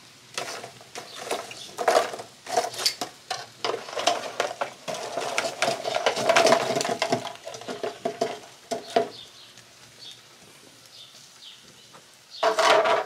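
Cookware and utensils clattering and scraping in a quick run of knocks and clinks as cooked stuffed chiles are checked and handled, quieter for the last few seconds.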